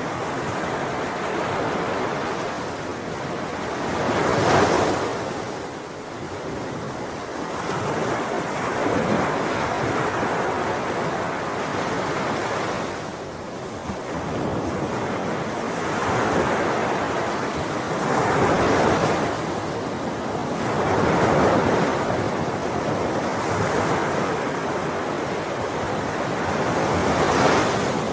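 Ocean waves breaking on the shore and washing back, one after another; the surf swells and falls every few seconds, with the loudest breakers about four and a half seconds in and again near the end.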